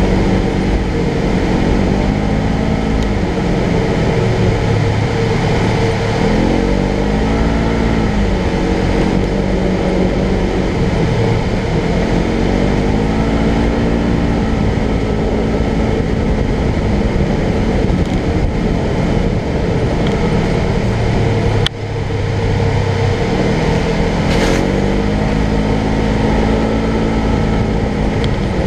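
Polaris General XP 1000 side-by-side's twin-cylinder engine running under way, its pitch rising and falling again and again with the throttle over a steady rush of noise. There is a brief drop in sound about two-thirds of the way through.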